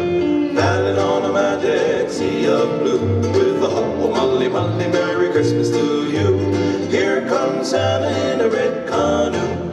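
An upbeat Christmas song with an island twist, playing steadily over a repeating bass line.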